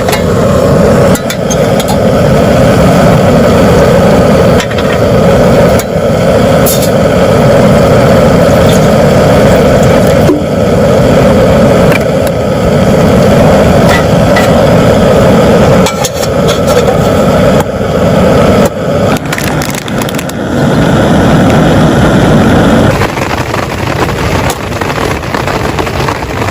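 Heavy rain beating on a tent, a dense steady hiss with scattered sharper drop hits; it eases a little near the end.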